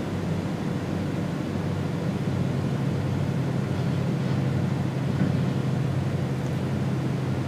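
Machining center running steadily while face-milling aluminum, a constant low machine hum with a faint steady tone above it.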